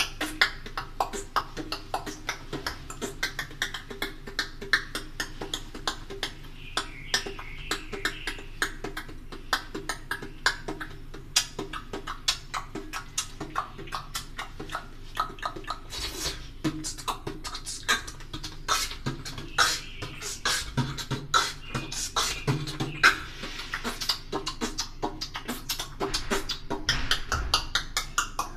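Beatboxing with a hand cupped over the mouth: a fast, unbroken stream of clicks, hits and other percussive mouth sounds.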